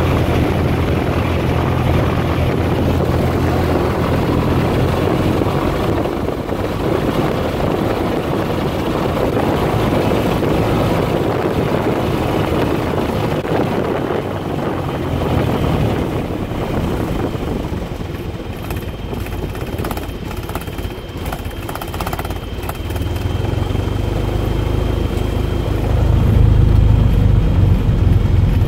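Light single-engine aircraft's piston engine and propeller running on the ground, heard from inside the cockpit. It runs steadily, eases a little in the middle, then grows louder and deeper near the end.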